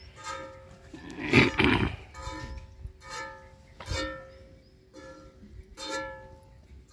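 Squirts of milk from a cow being milked by hand hitting a steel pot, making it ring at the same pitches about once a second. About a second and a half in comes one short, loud rushing burst.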